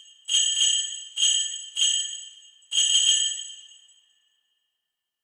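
Sleigh bells shaken in a quick run of about six jingles, with bright high ringing, fading out about four seconds in. This is the alarm that marks the end of the countdown.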